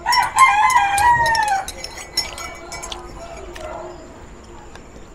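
A rooster crows once, for about a second and a half, the call wavering and then ending on a long falling note. Light clinks of a spoon and fork on a plate follow.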